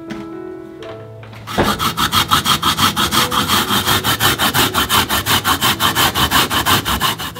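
A raw potato rubbed by hand over a grater, fast, even rasping strokes at about six or seven a second that start about a second and a half in and stop just before the end.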